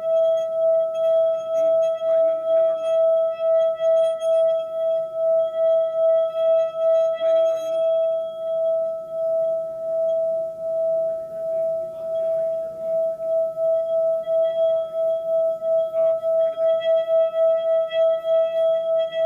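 Tibetan singing bowl being rubbed around its rim, holding one steady ringing tone with fainter higher overtones and a regular throb in loudness that quickens slightly near the end.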